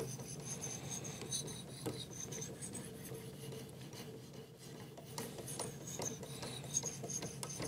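Ceramic hone on a Work Sharp Precision Adjust sharpener's guided arm, stroked up and down along the edge of a clamped knife: faint, repeated scraping strokes.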